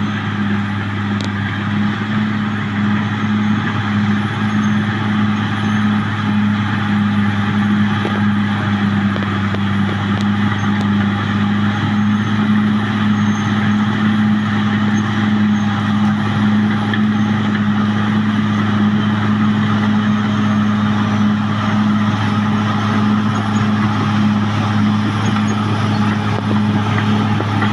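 Caterpillar D6R XL bulldozer's diesel engine running loud at a steady, unchanging pitch.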